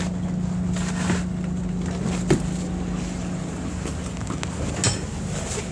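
A fishing boat's machinery humming steadily on board, with a constant low drone. Two short sharp knocks come about two seconds in and again near the end.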